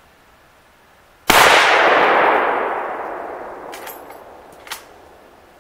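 A single rifle shot from a lever-action rifle, sharp and loud, about a second in, followed by a long rolling echo that fades over about three seconds. Two faint clicks come near the end.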